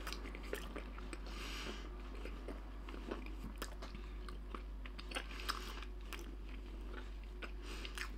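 A toothless man chewing slices of grilled pork belly, with irregular mouth clicks and smacks.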